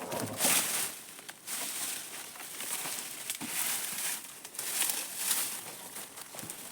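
Irregular rustling and scraping in uneven swells about once a second, with a few sharp clicks; the chainsaw is not running.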